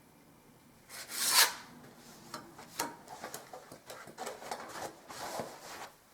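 Filling knife blade scraping over wet filler on a wall, smoothing it in a series of strokes; the first stroke, about a second in, is the loudest.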